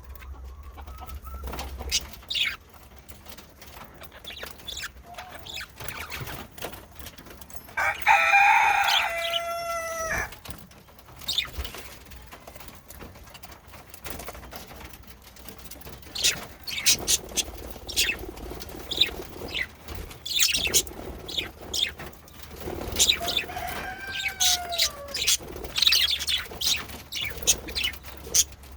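Budgerigars chirping and chattering in short high notes and clicks. A loud, drawn-out call comes about eight seconds in, and a shorter bending call comes near the end.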